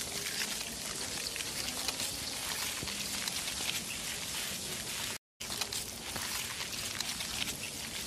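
Steady crackling, pattering noise full of tiny ticks. It cuts to silence for a moment about five seconds in.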